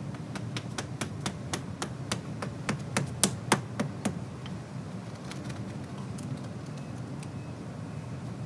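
Hammer blows driving a stake in for bender board edging: about fifteen quick, sharp strikes at roughly four a second, growing louder, that stop about four seconds in. A few faint knocks and rustles follow.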